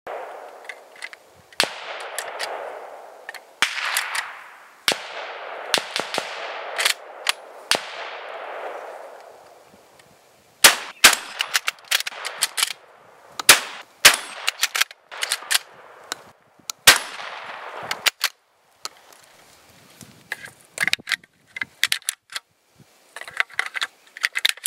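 12-gauge bolt-action shotgun, a J.C. Higgins 583.20, firing several shots with shot pellets clanging on steel plates. Near the end, lighter metallic clicks and clacks as the bolt is handled.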